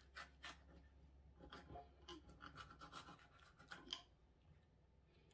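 Knife cutting a yellow capsicum (bell pepper) on a cutting board: faint, irregular taps and scrapes of the blade.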